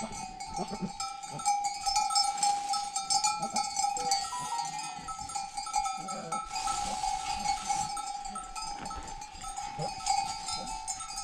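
Metal livestock bells on the flock ringing and clanking without a break, with light crackling and rustling from hands husking wild pistachios into a plastic bag.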